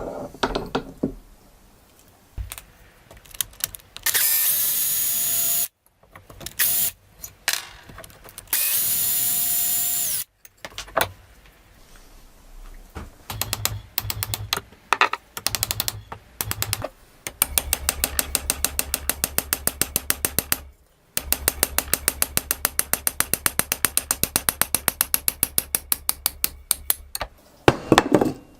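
Workshop tool work on an old hammer: a power tool runs in two short spells, each with a rising whine. Later comes a long run of rapid, evenly spaced clicking over a low hum.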